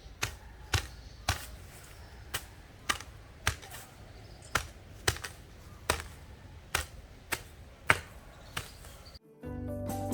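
A shovel chopping into turf again and again, about two sharp strikes a second, cutting through grass roots to break up the ground. Near the end the strikes stop abruptly and music starts.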